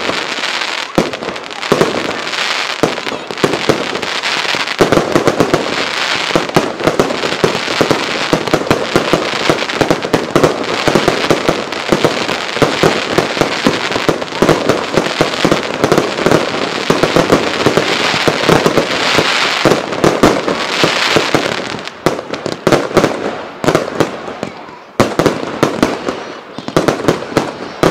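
Fireworks finale barrage: a dense, continuous run of rapid overlapping aerial bursts and bangs, easing off about three-quarters of the way through into more separate bangs.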